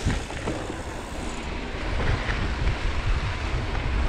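Mountain bike tyres rolling over a dirt road, with wind rumbling heavily on the microphone.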